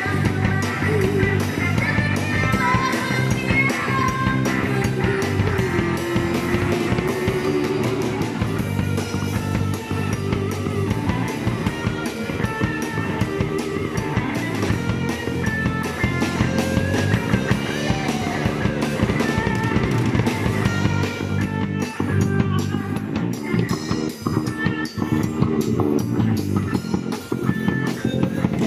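A live rock band playing electric guitar, bass guitar and a Tama drum kit, with a woman singing into a microphone over the first several seconds.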